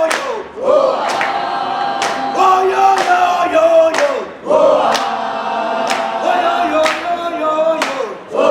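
A crowd singing a call-and-response chant together in long held notes, clapping hands in a steady rhythm about once a second.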